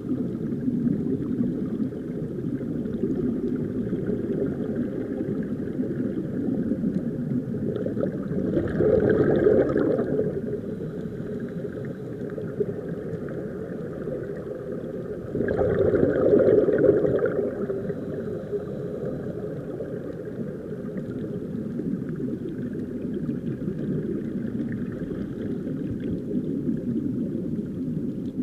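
Muffled underwater rumble and bubbling, heard from under the sea, swelling louder twice, about nine and sixteen seconds in.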